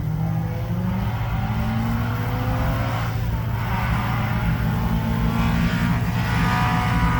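Historic rally car's engine running hard at a special-stage start, its pitch climbing and falling several times as the revs rise and drop.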